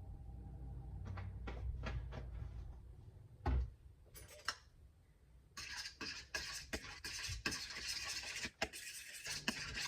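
Eggs and buttermilk being beaten in a bowl. A few light clicks and one sharp knock come first; then, from about halfway, a utensil scrapes and clicks rapidly and steadily against the bowl.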